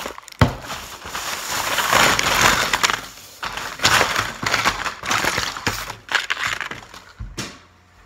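A thin plastic shopping bag rustling and crinkling in several bursts as packaged fishing lures are pulled out of it and handled, with a sharp click near the start.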